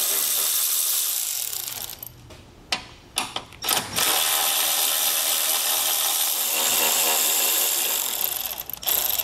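Cordless electric ratchet with a socket, backing out 10 mm bolts. It whirs for about a second and a half, gives a few short clicks, then runs again for about four and a half seconds.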